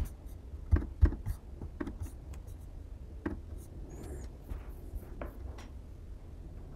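Scattered clicks and taps of a computer keyboard: a sharp click at the start, two louder taps about a second in, then lighter ticks spaced out, with faint rubbing between them over a low steady hum.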